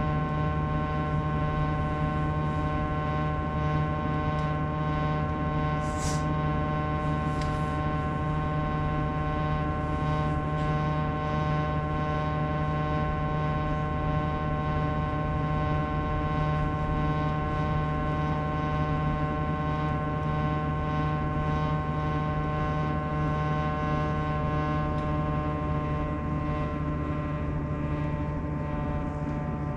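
Sharp AY-J40S-W air conditioner running with a steady droning hum topped by several high whining tones. It is an abnormal noise that the owner traces to a frequency fault, which repair has not cured. A brief hiss sounds about six seconds in.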